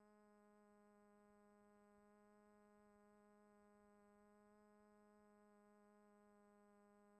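Faint, steady buzzing whine of a quadcopter's four brushless motors spinning 10x5 carbon propellers in flight, held at an even pitch.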